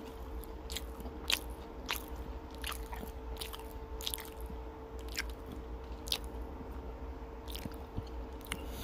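Close-up mouth sounds of someone chewing a double cheeseburger: sharp wet clicks and smacks, one or two a second, over a faint steady hum.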